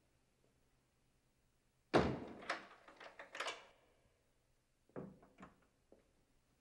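A heavy studded door is shut with one loud thud about two seconds in, followed by a second or two of rattling clicks. Footsteps on a hard floor begin near the end.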